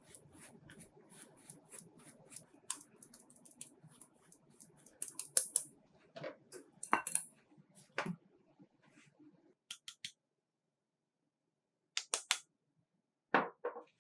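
Kitchen utensils clicking and tapping against a bowl, many short sharp taps over a soft scraping, with a silent gap of about two seconds shortly after the middle and a few more clicks near the end.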